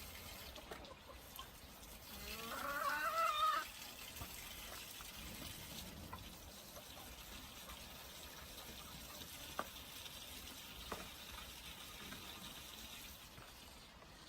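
A rooster crows once, about two seconds in; a faint steady background with a few light clicks follows.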